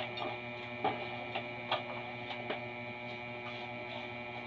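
Metal garden trowel working potting mix, giving a handful of short scrapes and knocks in the first two and a half seconds, over a steady electrical hum.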